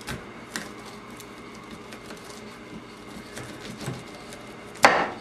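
Light knocks and taps of a knife and an ear of corn on a cutting board, then one loud chop near the end as the knife cuts through the corn cob into the board.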